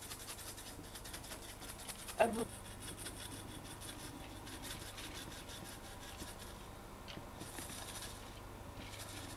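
Faint rustling and light handling noise over a steady hiss and hum, with one short vocal sound about two seconds in.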